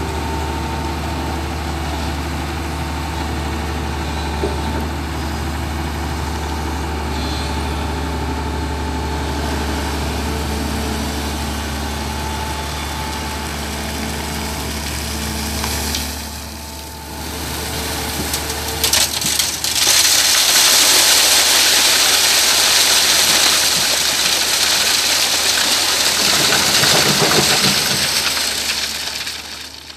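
LiuGong crawler excavator's diesel engine running steadily. About two-thirds of the way through, a loud rush of gravel and stones tumbling out of the bucket onto a steel mesh screen takes over and drowns the engine, fading just before the end.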